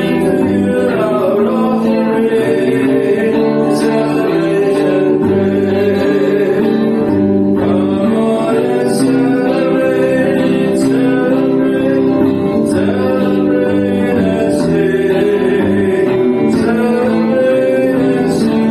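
Worship song: voices singing over guitar accompaniment.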